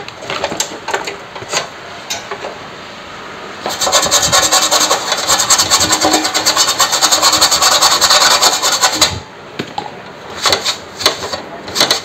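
Toothbrush bristles scrubbing the burnt, blackened brazing spot on an aluminium freezer box panel. After some scattered scratching strokes comes a fast, continuous rasping scrub from about four seconds in to about nine seconds. Lighter rubbing and scratching follow near the end.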